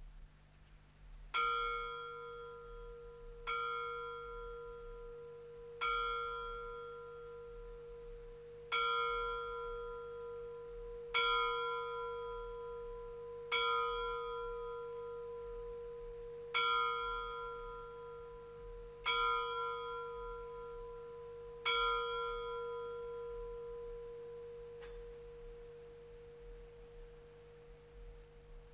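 Single church bell tolling slowly, about nine strokes some two and a half seconds apart. Each stroke rings on one steady tone with higher overtones and fades, and a faint last stroke comes near the end.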